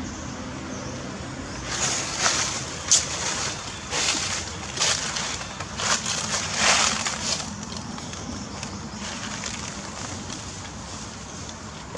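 Steady outdoor background noise, broken in the middle by a run of short rustling, crunching noises, one sharp crack among them.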